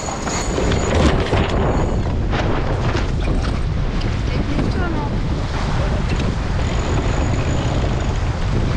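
Strong wind buffeting the microphone over water rushing and splashing along the hull of a J/99 racing sailboat sailing in about 25 knots of wind and a rough sea. There are a few sharp splashes or knocks in the first few seconds.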